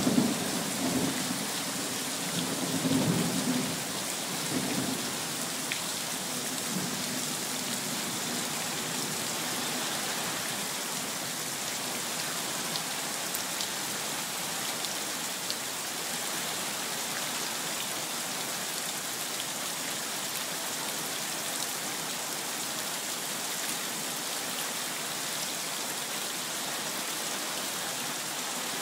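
Heavy rain falling steadily onto trees and puddled ground, an even hiss throughout, with a low rumble of thunder during the first few seconds.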